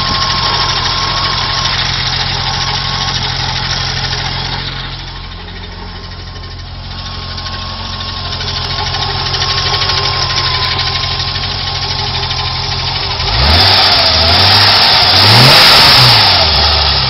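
Car engine idling with a ticking noise, which the owner suspects comes from the valves. About three-quarters of the way through it is revved up and back down a couple of times, louder.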